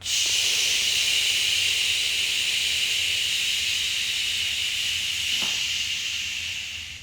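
A person's long, slow audible breath, a continuous hiss that starts abruptly and holds for about seven seconds before easing slightly near the end: a slow counted inhale in a yoga breathing exercise.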